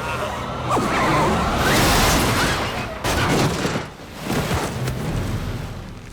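Horror-film sound mix of a violent attack: loud surges of crashing, struggling noise with shrill gliding cries, in two main bursts about a second and three seconds in, then dying down near the end.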